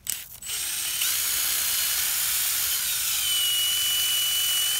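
Cordless impact driver spinning a stainless-steel brake pad pin wrapped in 180-grit sandpaper, a steady high whine with hiss starting about half a second in, sanding corrosion off the pin. The pitch drops slightly past the middle.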